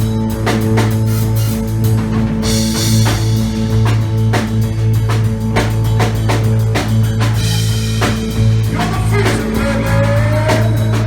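A band playing free-form, hypnotic rock: a drum kit keeps up regular heavy hits over a sustained low droning note. About nine seconds in, a wavering pitched line slides up and down above it.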